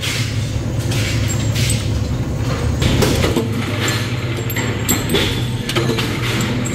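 Steady low hum of workshop machinery with irregular sharp metallic clanks from steel sprocket blanks being handled and loaded into a press.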